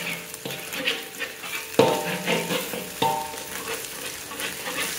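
Egg frying and sizzling in a wok as a spatula stirs and scrapes it, with two sharp ringing clanks of the spatula against the wok about two and three seconds in.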